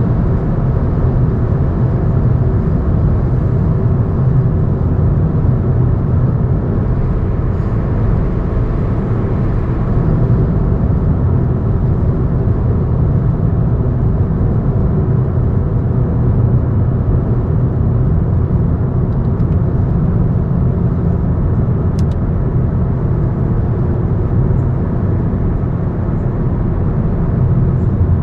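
Steady low rumble of a moving vehicle, road and running noise at an even pace.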